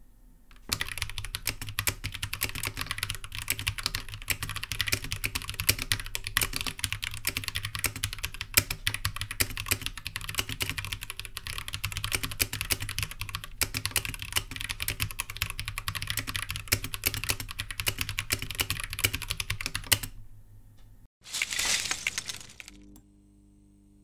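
Fast, continuous typing on a MonkeyKing iGK61 keyboard fitted with Holy Panda switches, which are tactile MX-style switches: a dense clatter of keystrokes. The typing stops about four seconds before the end. A short loud burst of noise and then soft music follow.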